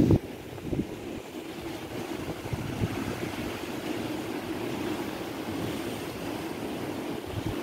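Sea surf washing against a rocky shore, a steady rush, with wind buffeting the microphone, strongest in a loud gust at the very start.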